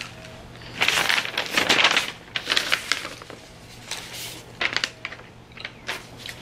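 Sheets of printer paper rustling and flapping as they are handled, in several short bursts.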